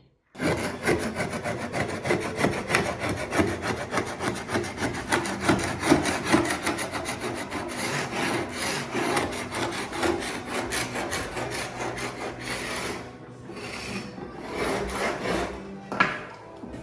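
Tool scraping and rubbing on old white oak floorboards: a fast, continuous rasping made of many quick strokes, breaking into shorter stretches with pauses over the last few seconds.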